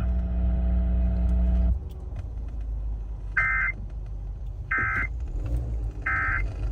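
Steady low electrical hum on the weather-radio feed, which drops away after about two seconds. Then come three short bursts of warbling two-tone data, about 1.3 seconds apart: the EAS end-of-message (NNNN) signal closing a NOAA Weather Radio tornado warning.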